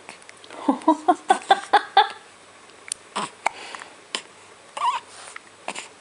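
Hiccups in a small room: a quick run of about seven short pitched sounds in the first two seconds, then several sharp single hiccups about a second apart.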